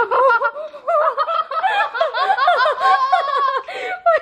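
People laughing hard and continuously in high-pitched, rising and falling peals, with voices overlapping.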